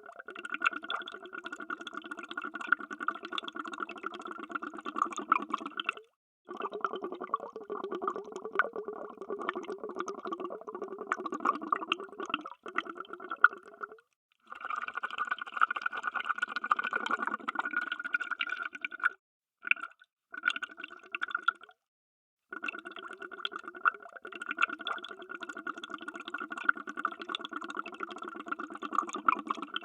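Underwater bubbling: a dense, fizzing stream of bubbles heard through water. It comes as several spliced takes that stop dead for brief gaps near 6, 14, 19 to 22 and 30 seconds in.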